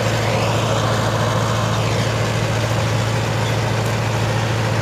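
Tractor engine idling steadily, a constant low hum with no change in speed.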